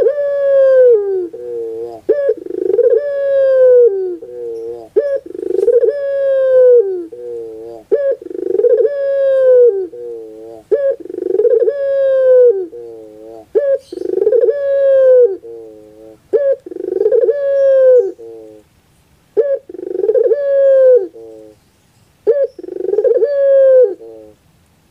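Puter pelung dove (domestic ringneck dove) cooing over and over, a call roughly every two seconds, each a short note followed by a long rolling note that falls away at its end.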